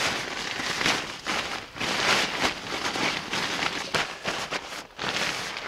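Rustling and crinkling of a tarp being spread out and handled, in an irregular run of sharp scrapes and crackles.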